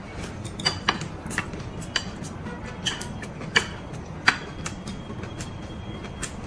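Eating at a table: a scatter of short, sharp clicks and taps from chopsticks and dishes, with chewing, over faint background music.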